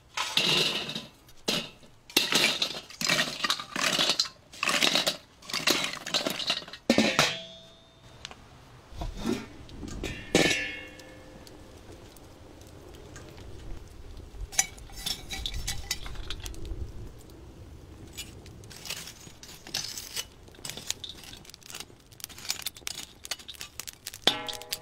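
Antique teapot being handled and worked on. About a dozen short, loud rasping strokes come in the first eight seconds. Then comes a single ringing clink about ten seconds in, followed by scattered lighter clinks and knocks.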